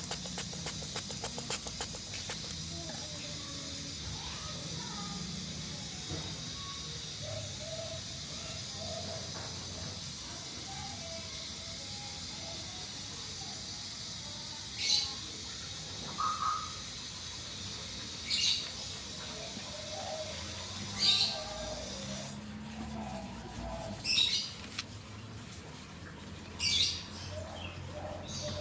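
Cleaner sprayed in short hissing bursts, about six of them a few seconds apart in the second half, over a faint steady hiss with birds chirping in the background.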